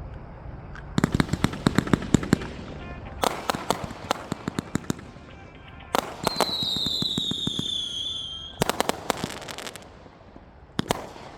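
Devil Rider Motorcycle 43-shot consumer fireworks cake firing: volleys of rapid sharp bangs in four or five bursts. About six seconds in, a whistle sounds for about two seconds, sliding slightly down in pitch, before the next volley.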